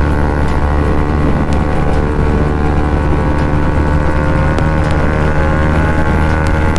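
Bajaj Pulsar NS200's single-cylinder engine running under way through an Akrapovic aftermarket exhaust, a loud, steady exhaust note whose pitch shifts slightly about two-thirds of the way in.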